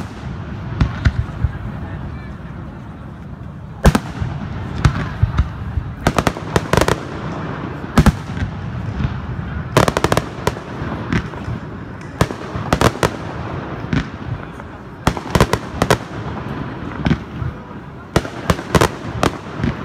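Fireworks display: aerial shells bursting in loud, irregular bangs, several in quick clusters, over a continuous low rumble.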